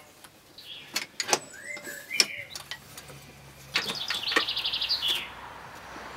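Birds chirping, with a short rapid trill about four seconds in. Under them are scattered sharp metallic clinks and knocks as a starter motor is wiggled into place in a BMW E36's engine bay.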